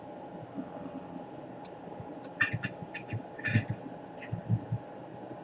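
A handful of light clicks and taps from small tools and wires being handled at a soldering bench, bunched together about halfway through, over a steady background hum.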